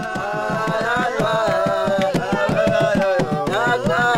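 Background music: a wavering melodic line over a quick, steady drum beat.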